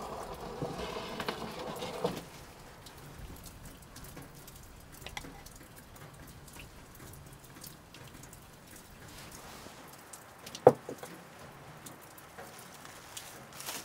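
Wooden spoon scooping and spreading wet chopped tomato sauce from a glass bowl over a large bread bun, a moist scraping for about the first two seconds, then quieter light dabs and taps. A single sharp knock about eleven seconds in.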